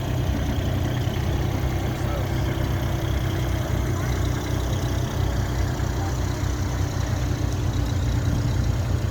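A construction machine's engine running steadily at constant speed, a continuous low drone.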